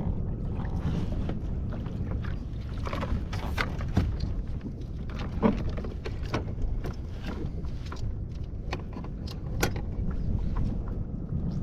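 Scattered clicks and knocks of fishing gear being handled on a plastic fishing kayak, over a steady low rumble.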